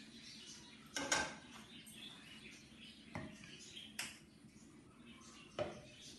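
About five sharp clinks and knocks of kitchenware: a spoon against the ghee jar and the frying pan as ghee is spooned in, and the jar being set down on the counter. The loudest comes just after a second in.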